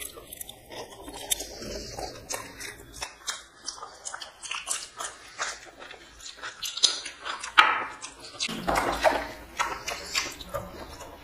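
Close-up chewing and mouth sounds of people eating mutton biryani by hand, with many short, irregular clicks.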